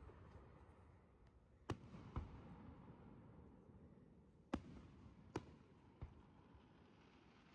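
Aerial firework shells bursting: about five sharp bangs at uneven intervals, the first about two seconds in, over a faint background hiss.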